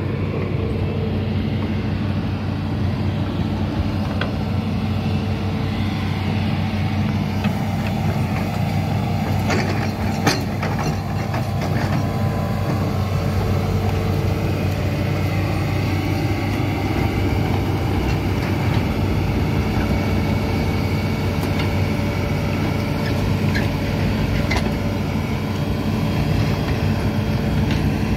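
Hitachi amphibious excavator's diesel engine running steadily, a few short knocks sounding about a third of the way in.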